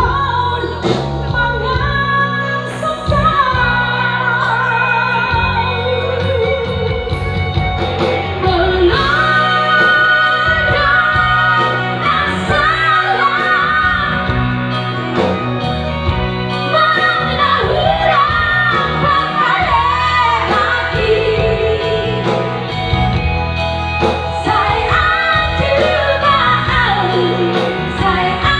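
A female vocal duo singing a pop melody over band accompaniment, holding long high notes with wide vibrato.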